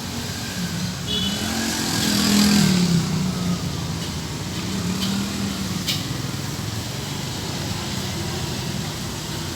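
A motor engine runs steadily with a low hum, swelling louder about two to three seconds in.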